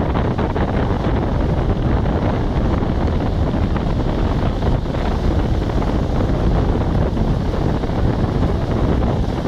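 Strong wind buffeting the microphone, a loud continuous low rumble, over the wash of breaking sea surf.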